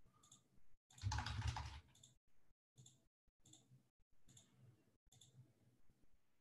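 Computer mouse clicks: about half a dozen single, sharp clicks spaced roughly a second apart, with a brief louder noise about a second in.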